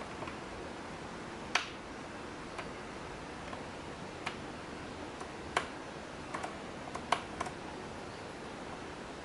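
Toggle switches on a FlySky FS-i6 radio transmitter being flicked, giving about eight sharp clicks at irregular intervals over a steady background hiss.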